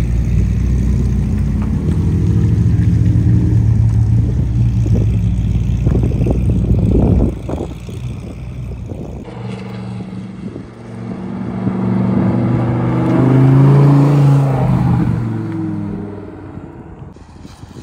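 Car engines running at low revs with a steady deep rumble that breaks off suddenly about seven seconds in. Then a sports car's engine revs up as it pulls away, loudest about fourteen seconds in, and fades.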